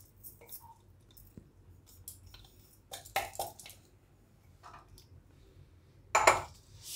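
Kitchen handling sounds around a steel bowl of coarsely ground fenugreek seeds: a few faint clicks and soft knocks, with a louder brief sound about six seconds in.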